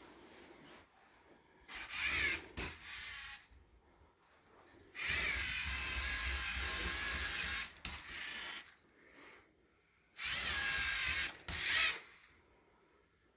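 LEGO competition robot's small electric motors and gearing whirring in several separate bursts as it drives and works its attachments. The longest burst lasts a little under three seconds, with short pauses between.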